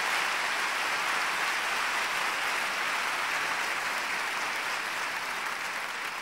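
Concert audience applauding, a dense, even clatter of many hands that holds steady and eases off near the end.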